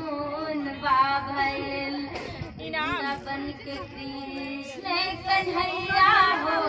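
A woman singing in a high voice, holding long notes with a wavering pitch.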